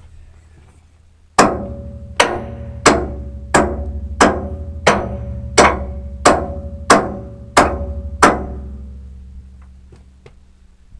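Hammer striking steel eleven times at a steady pace, about one blow every 0.7 seconds, each blow ringing out metallically and fading, in the course of fitting teeth onto loader bucket shanks. A steady low hum runs underneath.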